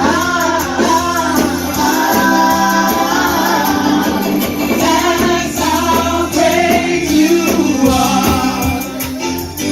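Worship band playing with a group of singers, female voices leading, over bass, guitar and a tambourine beat.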